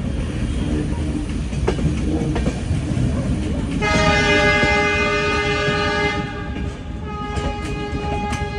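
Steady rumble of a moving passenger train. About four seconds in, a train horn sounds a loud blast lasting about two and a half seconds. A second, quieter horn tone at a different pitch follows and is still going at the end, with a few sharp wheel clacks over rail joints.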